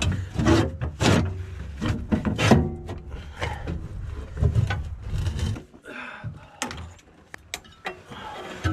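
Knocks, clacks and scraping of sheet-metal parts being handled: a loader's steel panel and the replacement AHC control module box being worked into place. The sounds are an irregular string of separate knocks, busiest in the first couple of seconds and sparser near the end.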